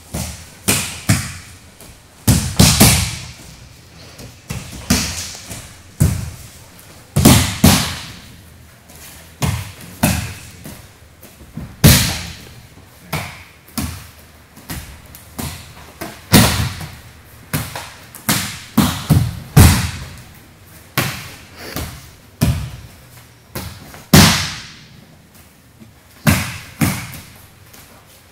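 Repeated thuds and slaps of an aikido uke's body and hands hitting the dojo mat as he takes breakfalls from throws in quick succession, one every second or two.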